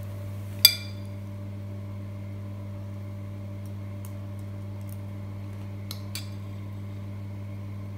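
Metal spoon clinking against a ceramic cereal bowl: one sharp ringing clink about a second in, then a few faint clicks as the spoon scoops cereal. A steady low hum runs underneath.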